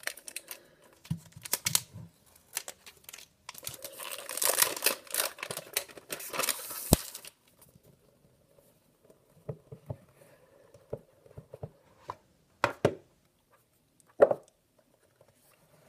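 Cellophane shrink-wrap being torn and crinkled off an iPhone 8 retail box, with a dense stretch of crackling from about three and a half to seven seconds in. Scattered light clicks and taps from the cardboard box being handled come before and after it.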